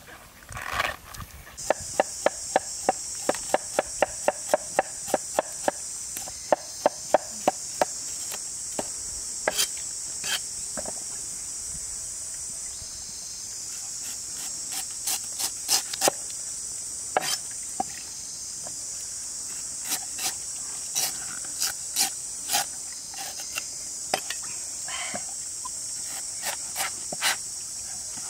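Cleaver chopping a peeled bamboo shoot on a wooden chopping block: a quick, even run of sharp knocks for about six seconds, then scattered single cuts. A steady, high insect drone sets in about two seconds in and carries on behind the chopping.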